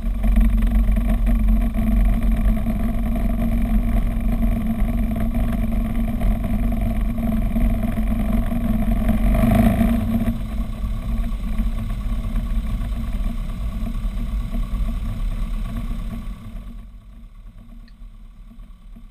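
Robin DR400's piston engine and propeller running at low power during the landing roll, heard inside the cockpit: a steady drone with a brief louder swell about halfway through. The sound drops away sharply about three seconds before the end.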